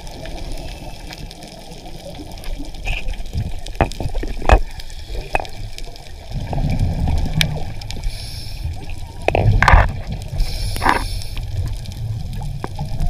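Underwater sound picked up by a diver's camera: a muffled low rumble of water with scattered clicks and short gurgling bubble bursts, the strongest about two-thirds of the way through.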